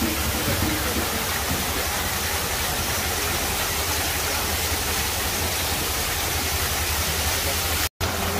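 Steady rush of a waterfall spilling down a quarried limestone rock face into a pool, with a low rumble underneath; the sound cuts out for an instant near the end.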